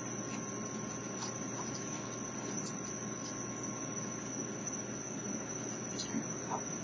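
Crickets trilling steadily at a high pitch over a low background hiss, with a few faint clicks from raccoons eating dry dog kibble.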